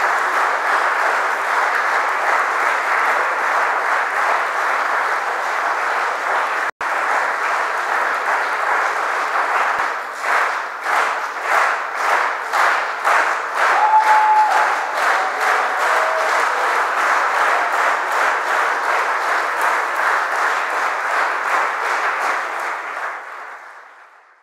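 Concert audience applauding. About ten seconds in, the clapping falls into a rhythmic unison beat of about two and a half claps a second, then fades out near the end.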